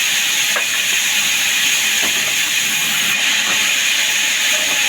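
Power saw cutting wood: a steady, loud hiss that holds one level throughout.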